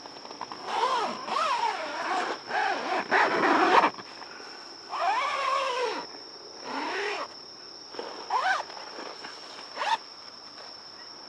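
Domestic cat meowing repeatedly, about seven rising-and-falling meows, the loudest around three to four seconds in. A steady high chirring of crickets runs underneath.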